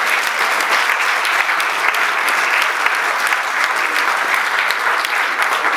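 Audience and panelists applauding: many hands clapping steadily.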